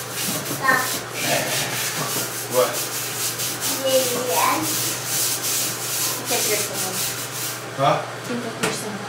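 Toilet brush scrubbing a porcelain toilet bowl in quick, continuous back-and-forth strokes.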